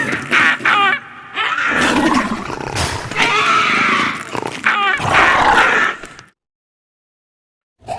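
Raptor dinosaur sound effect: a run of shrieking calls and growls, one after another. They cut off abruptly about six seconds in, and after a second and a half of silence another call starts right at the end.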